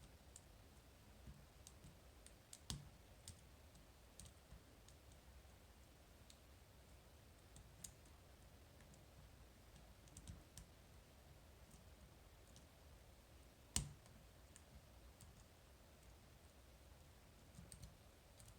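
Faint, scattered small clicks of a lock pick and tension wrench working the rotating pins inside a Medeco lock cylinder during picking, with one sharper click a little past two-thirds of the way through.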